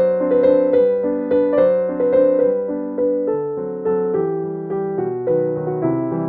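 Background music: a keyboard melody of single struck notes, about two to three a second.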